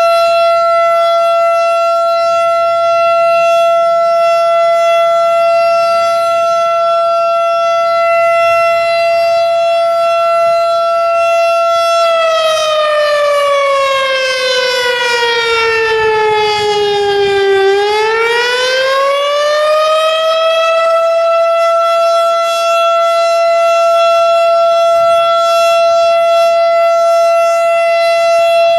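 A three-phase Federal Signal STH-10 outdoor warning siren sounding its Alert signal, a steady tone. About twelve seconds in, the pitch sags slowly and then climbs back to the steady tone a few seconds later.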